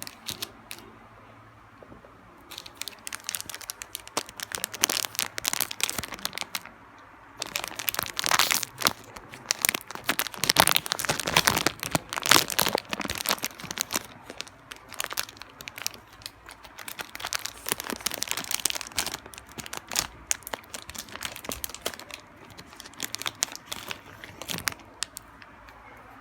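Plastic snack wrapper crinkling as it is handled, in dense crackly bursts with a short pause after about seven seconds.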